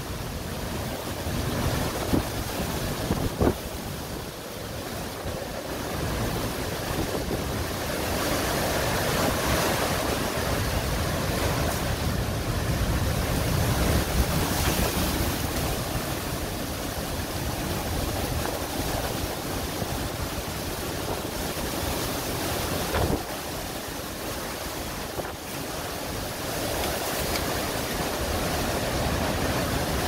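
Derecho winds and driving rain: a steady storm rush that swells and eases in gusts, with wind buffeting the phone's microphone. Two sharp knocks come about two and three and a half seconds in.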